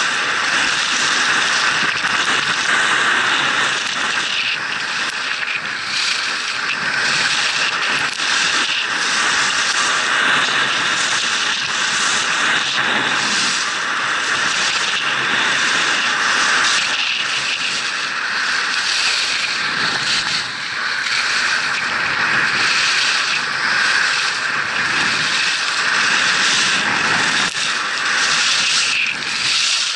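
Steady rushing noise of skiing fast down a groomed slope: skis hissing and scraping over packed snow, with wind rushing past the camera. It swells and eases a little with each turn.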